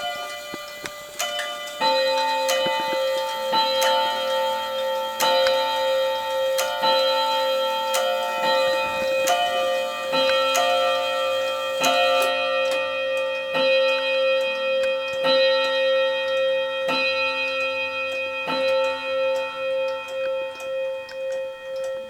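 Chiming mantel clock's hammers striking its tuned chime rods one after another in a chime tune, each note ringing on under the next.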